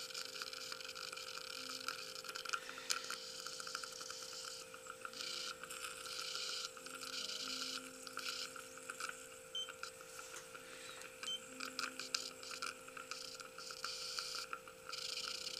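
Dental LED curing light in use, its timer giving a few short, faint beeps as it hardens the bonding composite. Under it runs a steady hum and a hiss that cuts in and out.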